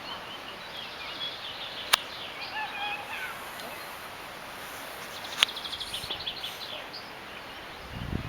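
Birds chirping and trilling over a steady background hiss, with two sharp clicks, about two seconds in and about five and a half seconds in.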